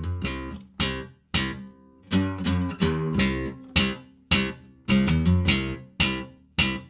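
Guitar music: plucked and strummed chords with sharp attacks that ring and die away in an uneven rhythm, with a couple of brief pauses early on.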